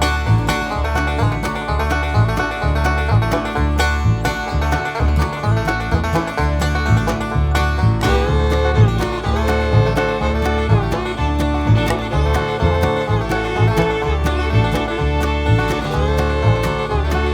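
Background bluegrass-style music with banjo and guitar over a steady beat.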